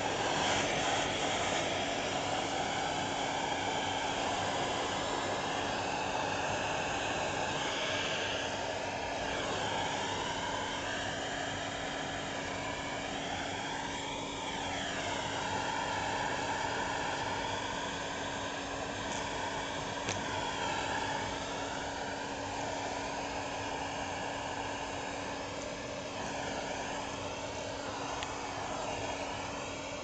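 Vacuum cleaner running steadily: a constant motor hum under a rushing airflow whose pitch wavers up and down now and then.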